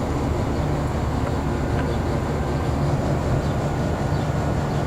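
Commercial air-conditioning and refrigeration condensing units running: a steady low compressor hum under the even rush of the condenser fans.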